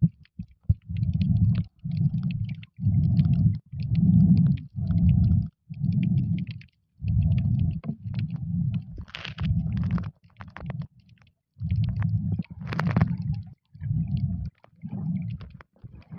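Muffled underwater sound from a submerged camera: rhythmic low rumbling surges of moving water, a little more than one a second, with faint clicks and a couple of brief hissing bursts of bubbles around the middle.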